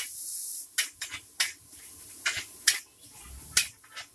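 Metal spatula striking and scraping a wok while stir-frying noodles: about seven sharp, irregular clanks, with the sizzle of the pan fading in the first half second.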